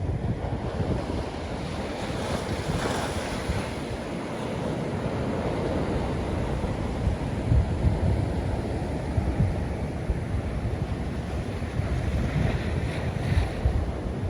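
Ocean waves washing in, swelling about three seconds in and again near the end, with wind buffeting the microphone.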